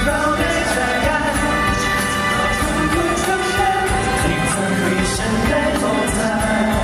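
A male pop vocal group singing a ballad live into handheld microphones, with accompaniment keeping a steady beat, heard over a concert sound system.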